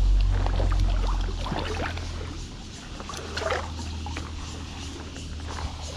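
Water splashing and sloshing with scattered small splashes, over a low rumble that is strongest in the first two seconds.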